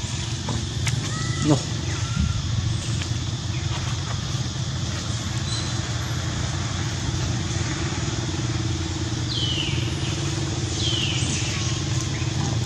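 A steady low motor hum runs throughout, with two short high falling chirps near the end.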